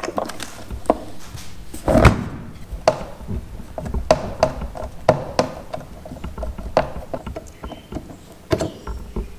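Irregular clicks and knocks of hardware being handled and unfastened as a fishfinder unit and its deck mount are taken off a boat, with one louder thunk about two seconds in.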